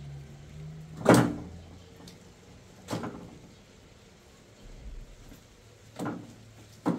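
Four dull knocks, spaced unevenly over several seconds, the first about a second in and the loudest.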